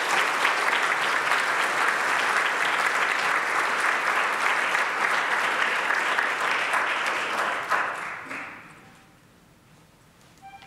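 Audience applauding: dense, steady clapping that dies away about eight seconds in.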